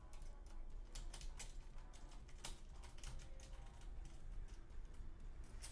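Scattered light clicks and taps, several a second, of an Allen key and small metal hardware as a latch bracket is tightened down.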